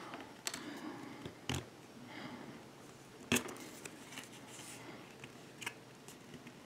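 Plastic pry cards scraping along the seam of a Samsung Galaxy Tab A's case while prying it open. Scattered sharp plastic clicks come from the case seam, the loudest a little past three seconds in.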